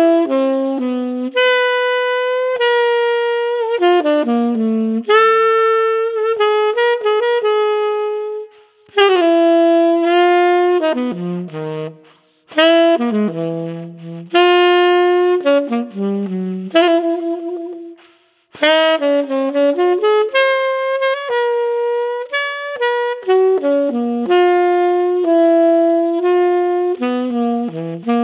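Tenor saxophone with a Mouthpiece Cafe Espresso tenor mouthpiece, playing a solo jazz line of held notes and quick runs with a warm, deep tone. Three short breaths break the phrases, about 8, 12 and 18 seconds in.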